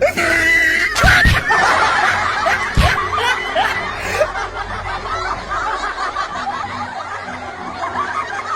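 Several people laughing together, a dense run of overlapping laughter. A few sharp thumps come about a second in and again near three seconds.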